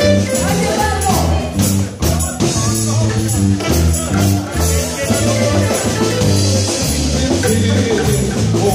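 Live band playing amplified dance music, with drum kit, electric guitar and keyboard over a steady, stepping bass line.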